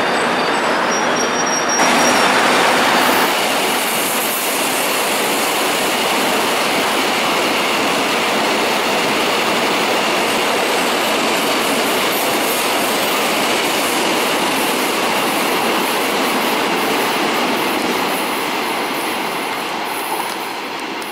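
A Korail Line 1 electric multiple unit pulling away, then a freight train of tank wagons behind an electric locomotive running through the station. Its wheels on the rails make a steady noise, loudest about two seconds in, that fades near the end as the train moves off.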